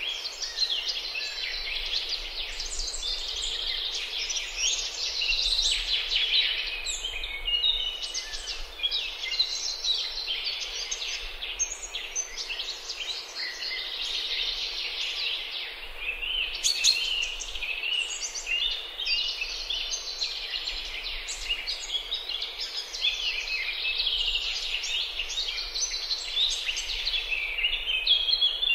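Many small birds chirping and singing at once: a dense, continuous chorus of short high chirps.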